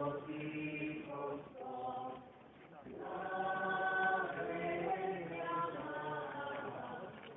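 A group of voices singing a devotional chant together in long held notes. The singing breaks off about two seconds in and resumes about a second later.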